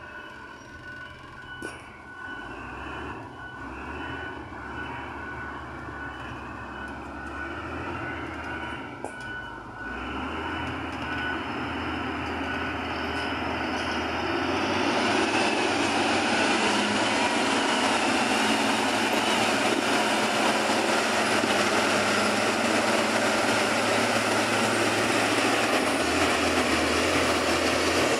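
An XCMG motor grader's diesel engine running as the machine grades the gravel roadbed. It grows louder as the grader comes closer, and from about halfway through a loud, even rushing noise is added.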